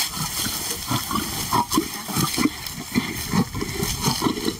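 Lion growling over its meat in a rapid series of short, low pulses, about three a second: a warning that keeps another lion away from its food.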